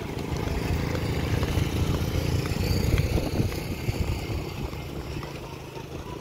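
Motorcycle engines running as they ride past, a low steady rumble that eases off after about four seconds.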